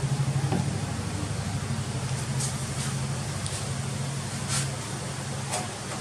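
A vehicle running steadily: a low engine hum under a broad hiss of road noise, with a few brief high squeaks or chirps.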